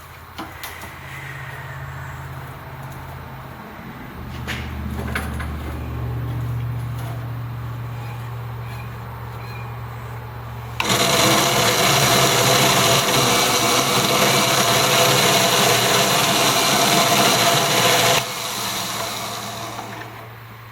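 Cook's automatic saw blade sharpener running: a few clicks and a low steady motor hum, then about eleven seconds in a sudden loud grinding noise that holds for some seven seconds before dropping back and fading.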